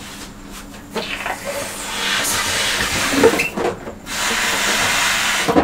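Two people blowing hard into rubber balloons to inflate them: long rushing blows of breath, with a short break about four seconds in.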